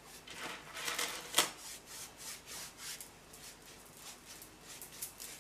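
Flat bristle pastry brush rubbing back and forth over rolled croissant dough, wetting it with water: soft repeated brushing strokes that grow fainter toward the end, one sharper stroke about a second and a half in.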